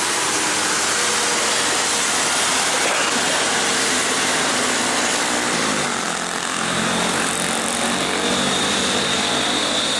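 Heavy truck engines working up a steep grade, a steady loud drone with road and traffic noise; a lower, deeper engine note comes in about halfway through as another truck draws near.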